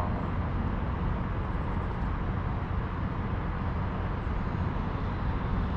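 Steady outdoor background noise: a low rumble with a hiss above it, even throughout, with no distinct event.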